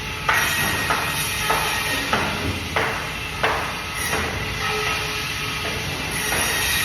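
Band saw running and cutting through fish, the blade biting in six times in quick succession, about every two-thirds of a second, then a longer, steadier cut.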